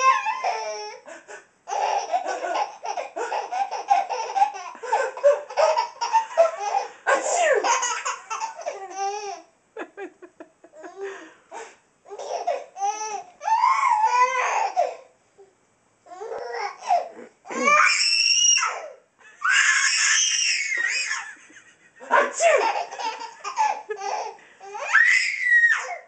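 Baby laughing hysterically in repeated bouts a few seconds long, with short pauses between them and some high squeals in the second half.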